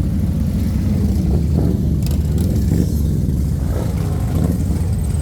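Motorcycle engines running loud and low as a steady stream of bikes rides past.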